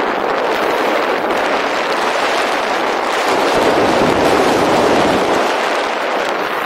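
Loud, steady rush of airflow over the jumper's camera microphone while flying under an open parachute canopy on final approach, swelling slightly about four seconds in.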